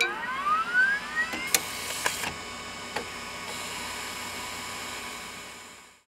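A motorised machine winding up with a rising whine, then a few sharp clacks and a steady mechanical whir that fades out near the end.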